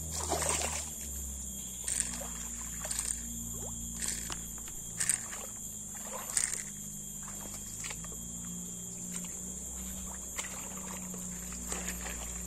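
A splash in shallow swamp water in the first second, then footsteps crunching through dry leaf litter in uneven steps, over a steady high-pitched insect drone.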